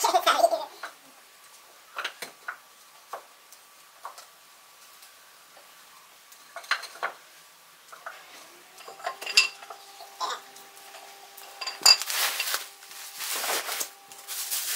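Scattered knocks and clinks of wooden legs and metal fittings being handled while a small stool is put together, with a longer scraping rustle near the end.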